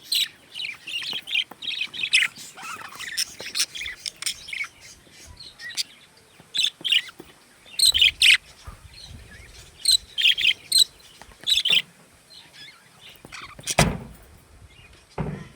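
Budgerigars chirping and chattering in quick short calls, with one sharp knock near the end.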